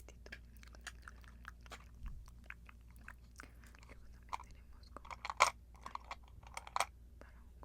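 Earrings handled close to the microphone: a run of small, sharp, irregular clicks and taps, loudest in a cluster about five seconds in and again near the end.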